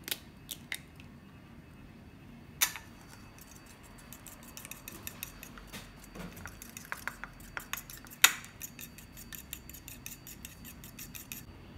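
A hen's egg is tapped and cracked against a small bowl: a few sharp knocks in the first three seconds. Then it is beaten with a metal fork, with rapid clicking of the tines against the bowl and one louder knock a little past the middle.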